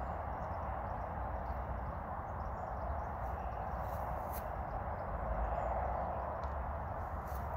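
Wind buffeting a phone microphone in an open field: a steady rushing noise over an uneven low rumble, with a couple of faint ticks.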